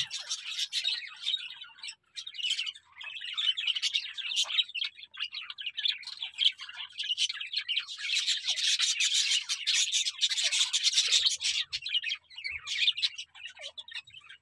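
A group of budgerigars chattering: a continuous scratchy warble of chirps and squawks, with brief lulls and the busiest stretch past the middle.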